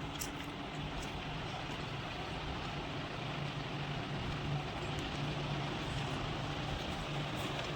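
Steady running noise of a moving road vehicle, with a constant low hum under an even rush of noise.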